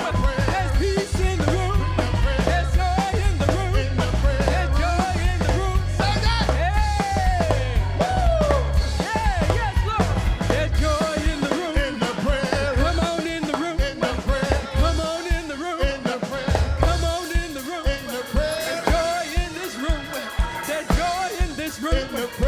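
Live gospel worship music: wordless singing over a band with drums. A heavy low bass drops out about halfway, leaving drum hits under the voices.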